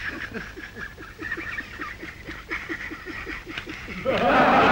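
A man chuckling in quick, soft, evenly spaced pulses, about five a second. Near the end a louder, fuller voice sound comes in.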